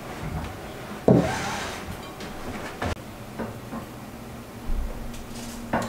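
Light handling sounds of tableware: a knock and scrape about a second in, fading away, then a few faint clicks.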